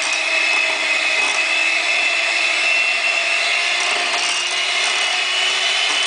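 Electric hand mixer running on its low speed, beaters whirring through pancake batter, with a steady high whine that rises slightly in pitch.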